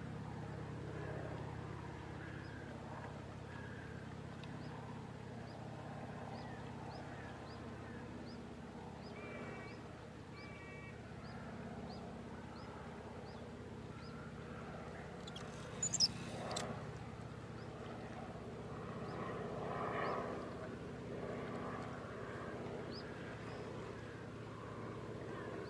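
Distant motorboat engine running with a low, steady drone across the river, with faint animal calls around it and one sharp click about two-thirds of the way through.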